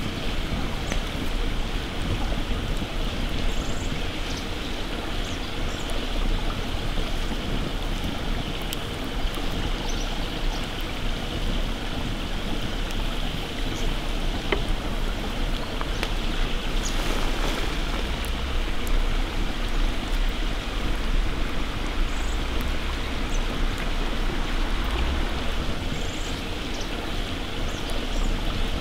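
Steady rushing of running water, like a forest stream, with a few faint crackles from a wood campfire.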